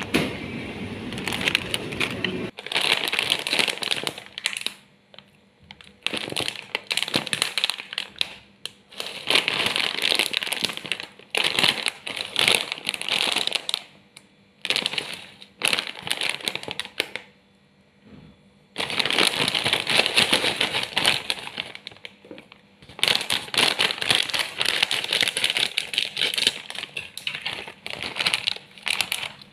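Close-miked crunching of crispy churro snack sticks being bitten and chewed, in bursts of a few seconds with short pauses, mixed with crinkling of the plastic snack packet.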